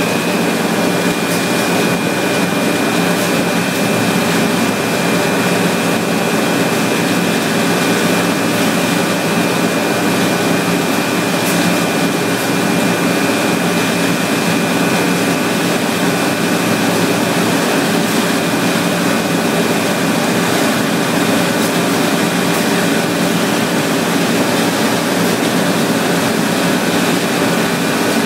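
Steady, even running noise of an industrial roll-cutting guillotine machine and its through conveyor, with a faint high steady whine. No blade stroke or impact is heard.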